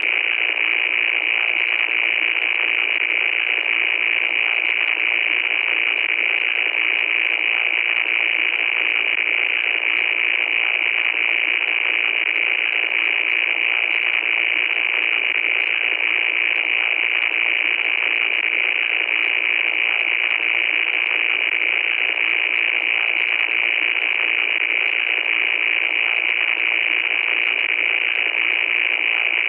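Loud, steady static noise: a harsh, hissing rush with no low end, brightest in its upper part, unchanging and without a break.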